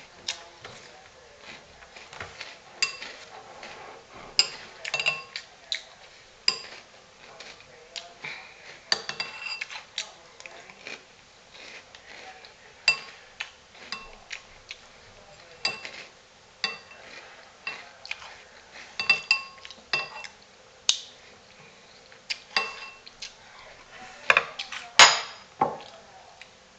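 A metal spoon clinking and scraping against a cereal bowl at irregular intervals, each tap ringing briefly. Near the end there are two louder clacks as the spoon is put down on the wooden table.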